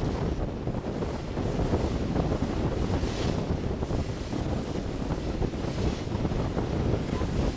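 Wind buffeting the microphone aboard a ship under way: a steady, low rushing noise with no distinct tones.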